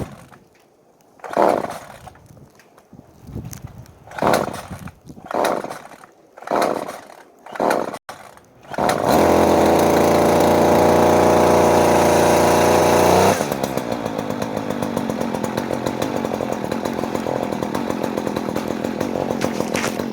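Small two-stroke chainsaw cold-started on half choke: about six pulls of the starter cord, each a brief spin of the engine, before it catches about nine seconds in. It runs loud and fast for about four seconds, then drops to a lower, steady running speed.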